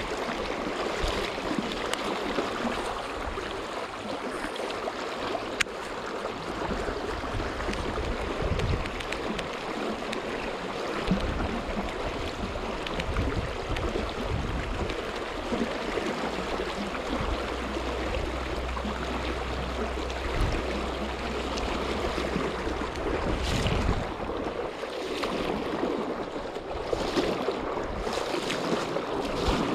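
A fast, shallow river current rushing steadily over a stony riffle, with a low rumble partway through.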